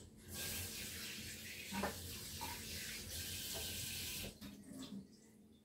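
Tap running while hands are washed under it, a steady rush of water that is shut off about four seconds in, followed by a few faint knocks.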